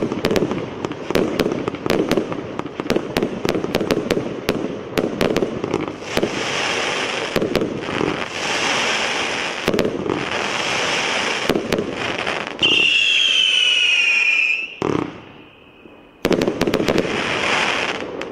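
A 102-shot fireworks cake firing in rapid sequence: quick launch thumps and bangs over dense crackling. About twelve and a half seconds in, a loud whistle falls slightly in pitch for about two seconds and ends in a sharp bang; after a short lull, a last volley of crackling shots.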